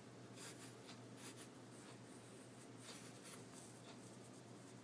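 Faint scratchy rustling of fingers pressing and rubbing a crocheted yarn strawberry onto a crocheted yarn scarf, working it into hot glue, in several short strokes over a steady low hum.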